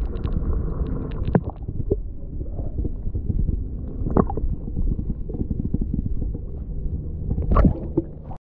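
Stream water heard through a submerged camera: a muffled low rumble with gurgles and a few sharp knocks, the loudest near the end. It cuts off suddenly just before the end.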